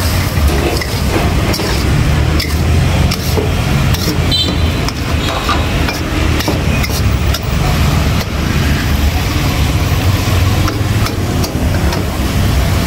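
A metal spatula scraping and clanking against a wok as beef and basil stir-fry and sizzle, with many short sharp clicks over a loud steady low roar from the burner beneath.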